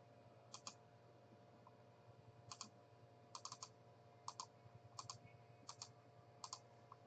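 Faint clicking at a computer: short clicks in pairs and small clusters every second or so.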